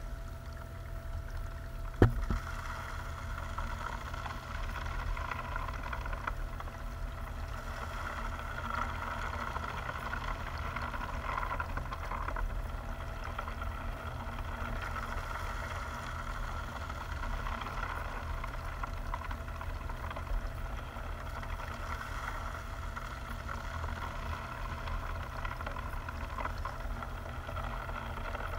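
Water flowing steadily down through a wire-mesh screen in a tube, over a steady low rumble. One sharp knock about two seconds in.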